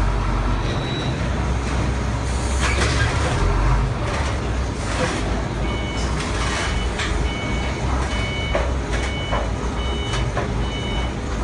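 A vehicle's engine running with a low rumble, with scattered knocks and clatter. A little past halfway its reversing alarm starts beeping repeatedly in high tones.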